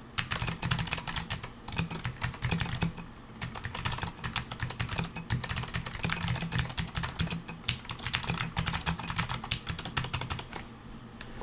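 Fast typing on a 40% mechanical keyboard with clicky Amber Alps switches: a dense run of sharp key clicks with a couple of brief pauses, stopping shortly before the end.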